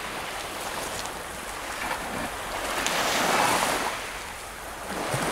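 Baltic Sea surf washing onto the beach: a steady rushing hiss that swells with a wave about three seconds in, fades, and builds again near the end, with some wind on the microphone.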